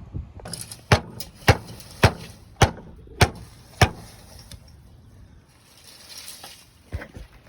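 Six sharp, evenly spaced hammer blows, nearly two a second, followed near the end by two lighter knocks.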